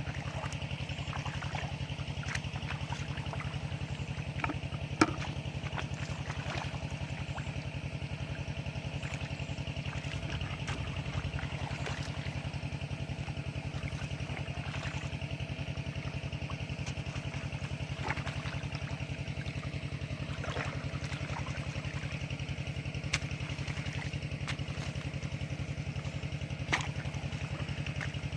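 A small engine running steadily with an even, rapid pulse, with a few sharp clicks over it.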